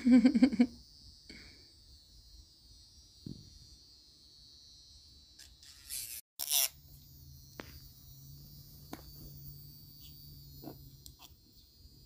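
Small electric nail file running at a low level while filing a bird's claws, a faint steady whine with a low hum that comes in about halfway through, and a few light clicks. A brief, loud voice sounds at the very start.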